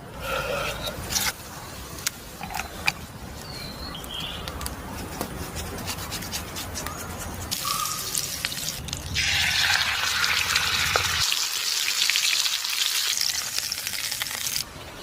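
Chicken frying in hot oil, sizzling, with scattered clicks. The sizzle grows much louder about nine seconds in and cuts off abruptly near the end.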